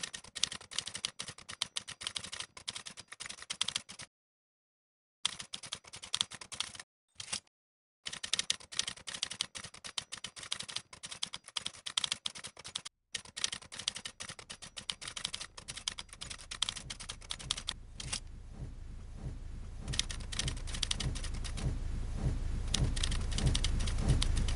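Rapid key clicks of a typing sound effect, in quick runs broken by short pauses. From about halfway a low rumble comes in underneath and swells steadily louder.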